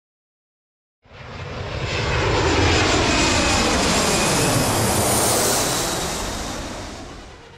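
Jet airliner flying past: after about a second of silence its engine noise swells up, holds loud for a few seconds with a sweeping, phasing quality, then fades away near the end.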